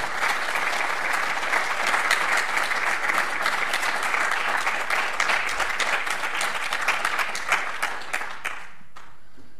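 Audience applauding, a dense patter of many hands clapping, which fades out and stops about a second before the end.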